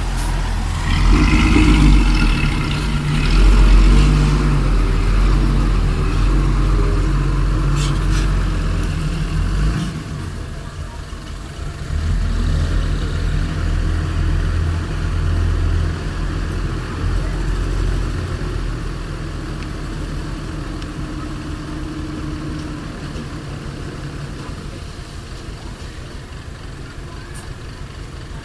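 Heavy diesel engines of earth-moving machinery working: revving up about two to four seconds in, running hard, dropping briefly near ten seconds, pulling again, then easing off steadily toward the end.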